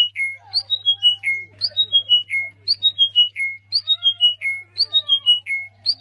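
A caged bird singing one phrase over and over, about once a second: a high note stepping down through four or five quick notes to a held lower note. Fainter, lower gliding calls sound underneath.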